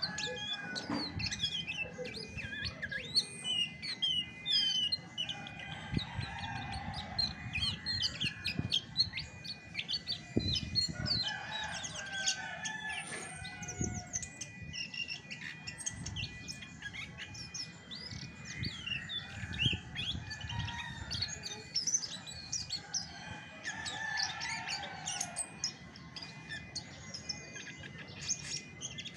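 Chestnut-backed thrush (anis macan) singing a dense, varied song of fast chirps, trills and short whistled glides, with lower warbled phrases coming in every few seconds.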